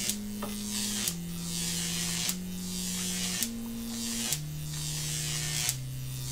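A buzzing electronic tone, like an electric shaver, stepping through a slow series of low notes about once a second. Each change of pitch is marked by a short click.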